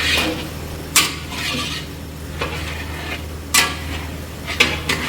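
Metal spoon or ladle clanking against a cooking pot while curry is stirred, with a few sharp clanks, the loudest about a second in and two more near the end, over a steady low hum.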